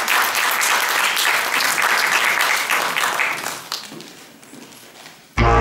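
Audience applauding, dying away about four seconds in. Near the end, music starts suddenly with low notes.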